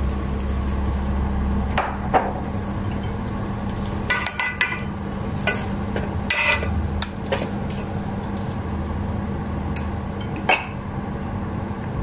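Metal spoon stirring pork pieces in a pot, scraping and knocking against the pot in irregular clinks over a steady low hum.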